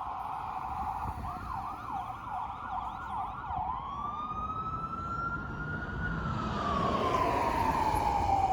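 Fire engine's electronic siren in a fast yelp that switches, about 3.5 seconds in, to a slow wail rising and then falling, with the truck's engine rumbling underneath. It grows louder toward the end as the truck comes closer.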